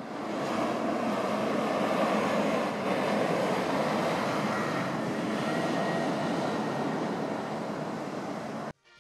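Steady road traffic noise, with a bus driving across a road bridge. It builds over the first second and cuts off abruptly near the end.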